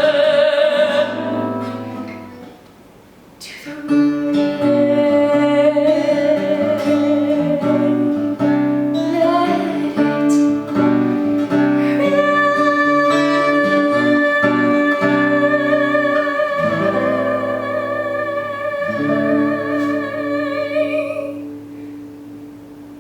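A woman singing with acoustic guitar accompaniment, ending the song on a long held note with vibrato; voice and guitar fade away near the end.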